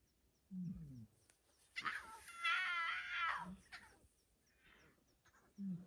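Lion cubs calling with high, wavering mews, the longest run between about two and three and a half seconds in. Short low falling calls come about half a second in and again near the end.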